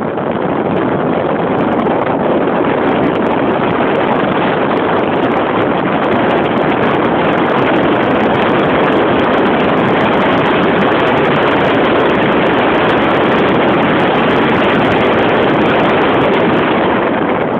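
Wind rushing over a phone's microphone while riding in a moving 48-volt electric golf cart, a loud steady roar that eases a little near the end.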